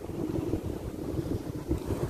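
Wind buffeting the microphone in uneven gusts, over the wash of sea waves against a seawall.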